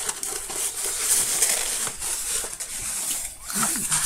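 Crinkling and rustling of a rolled diamond-painting canvas sheet and its protective film as it is handled, peeled and unrolled, with many small crackles throughout.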